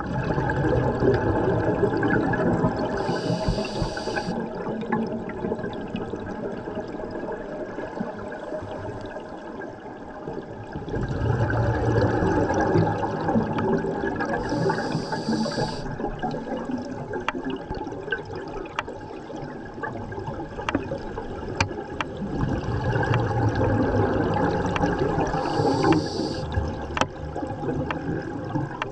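Scuba diver breathing through a regulator underwater, three breaths about eleven seconds apart. Each breath brings a short hiss and a long rumble of bubbles.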